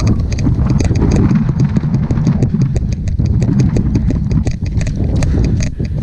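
A player running: quick, irregular footfalls with rustling and knocking of gear, over a heavy low rumble of the microphone being jostled.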